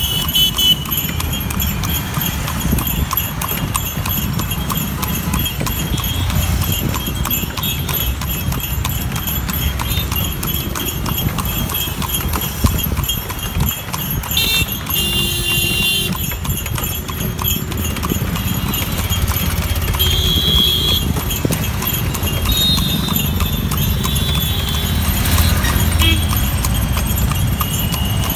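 A horse's hooves clip-clopping steadily on an asphalt road as it pulls a horse cart, over a low rumble of town traffic. A vehicle horn sounds briefly about halfway through, and again a few seconds later.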